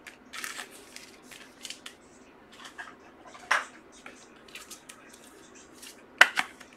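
Scattered soft clicks, scrapes and rustles of trading cards and their sleeves being handled, with a sharper snap about three and a half seconds in and two louder ones near the end.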